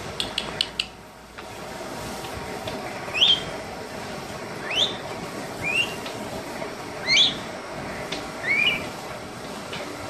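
Congo African grey parrot giving short rising whistles, about five of them spaced a second or so apart. A few sharp clicks come right at the start.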